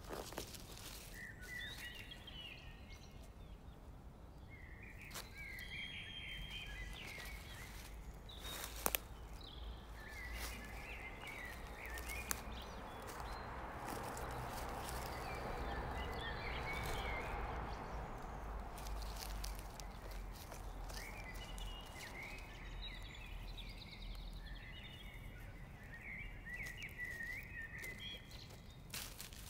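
Small birds chirping in short, scattered calls, with rustling and footsteps in dry leaf litter and a few sharp clicks. A rushing noise swells and fades over several seconds in the middle.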